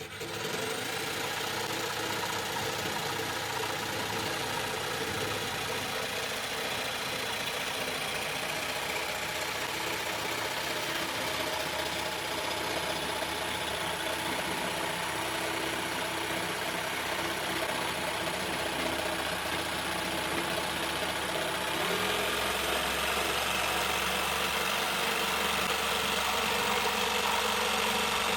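Bosch PST 800 PEL electric jigsaw running steadily after a quick spin-up at the start. About 22 seconds in, its sound deepens and gets slightly louder.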